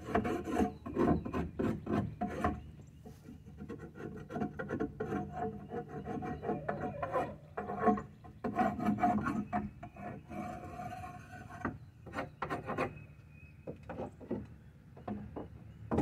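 A hand scraper rasping along the wooden perches of a chicken coop in clusters of quick back-and-forth strokes, scraping off droppings. The strokes are heaviest in the first couple of seconds and again about eight seconds in, and thin out near the end.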